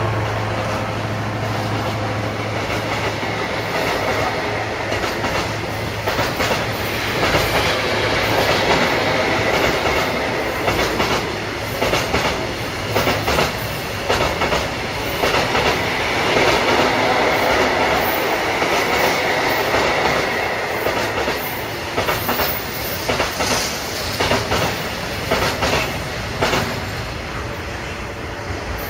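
Freight wagons of a cement train rolling past, their wheels clacking repeatedly over rail joints. A low diesel-locomotive drone fades out in the first couple of seconds.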